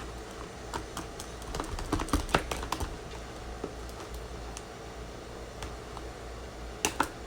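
Slime being stirred with activator: irregular sticky clicks and ticks, a quick run of them about two seconds in and two loud ones near the end.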